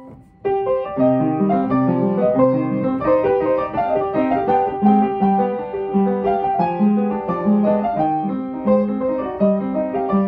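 Solo piano playing classical music: after a brief lull, a new passage begins about half a second in, a steady stream of notes over a lower line of accompaniment.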